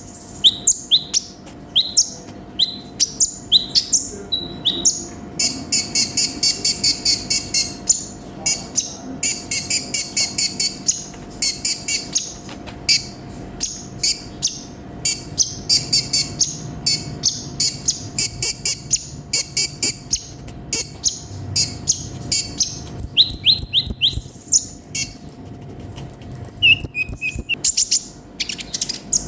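Konin sunbird singing a fast, varied, high-pitched song of quick rising chirps and rapid chattering trills with hardly a pause. A faint steady hum sits underneath.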